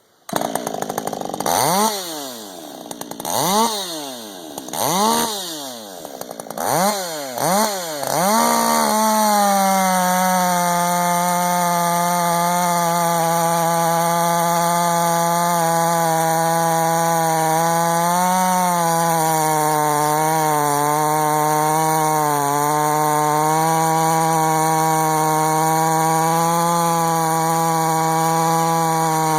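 Husqvarna 562XP chainsaw, stock and unported, blipped up and down about five times, then held at full throttle at a steady pitch for about 20 seconds while cutting through wood, the pitch sagging briefly a couple of times under load.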